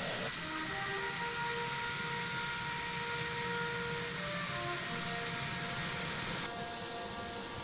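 Jet engine running with a steady whine. A continuous hiss sits under several steady high tones, and the sound shifts about six and a half seconds in.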